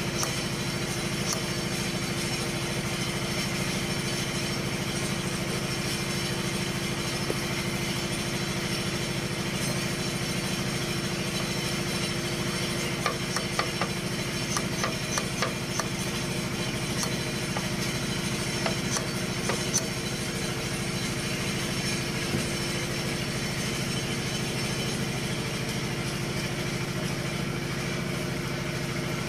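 An engine idling steadily. Several light clicks come a little before halfway through and a few more soon after, from metal valve parts being handled.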